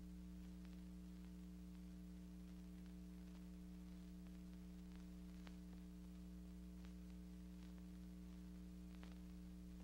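Near silence: a steady low hum with a few faint scattered clicks.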